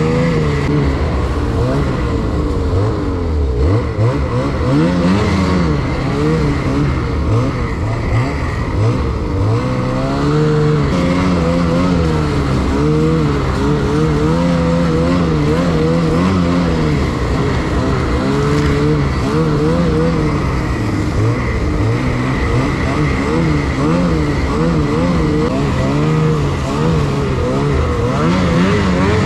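Snowmobile engine running under load while being ridden, its pitch rising and falling over and over as the throttle is opened and eased.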